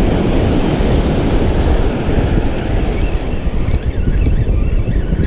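Wind buffeting the microphone over the steady wash of ocean surf breaking on the beach, with a few faint ticks in the second half.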